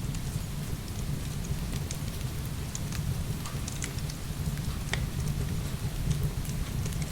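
Heavy rain falling steadily over a deep continuous low rumble, with the crackle of a wood fire: many short sharp pops scattered throughout.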